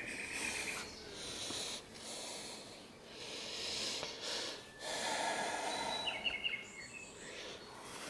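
A person breathing heavily close to the microphone: a run of noisy breaths about a second each, with short pauses between them. A few brief high chirps come about six seconds in.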